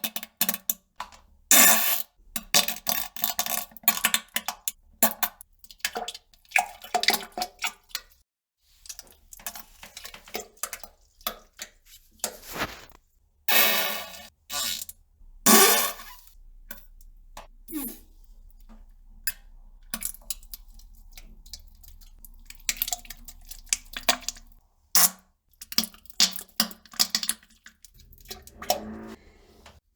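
Farts and poop sounds in short, irregular bursts, some with a buzzing pitch, separated by brief pauses.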